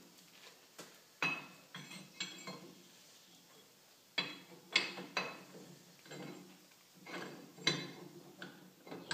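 Steel linkage plate and pin being fitted by hand onto a sweep plow's lift linkage, clinking and knocking metal on metal. The clinks come in short clusters about a second in, around four seconds in and around seven seconds in.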